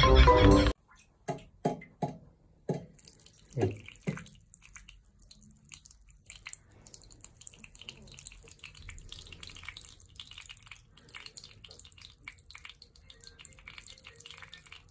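Water dripping: about six separate plinking drops in the first few seconds, then a faint, steady watery trickle.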